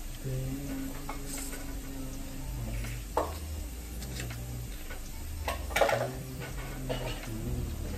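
Wet mouth sounds of someone sucking and biting on a citrus wedge, with a few short sharp smacks, the loudest a little before the six-second mark.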